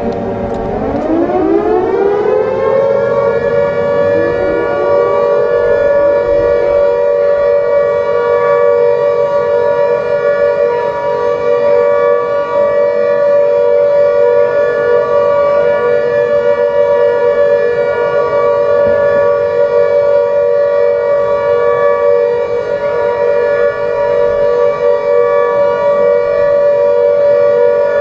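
A siren winds up from a low pitch to a high wail over the first two or three seconds, then holds a steady, loud tone.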